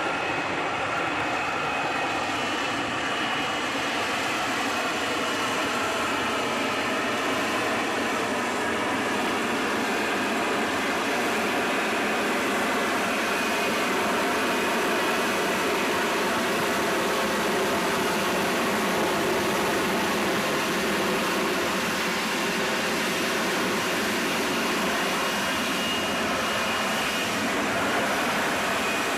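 Jet engine running steadily: a constant rushing noise with faint whining tones that drift slowly up and down in pitch.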